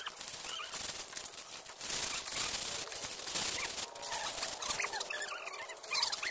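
Chickens clucking and calling in short bursts. Under them, a plastic crate is being washed, with a steady hiss of scrubbing and water from about two to four seconds in.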